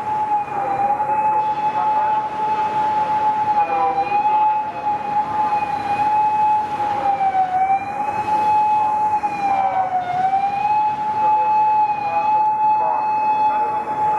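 Police siren on a Toyota Crown 210-series unmarked patrol car, sounding one long steady tone that dips briefly in pitch every few seconds, over the hiss of passing city traffic.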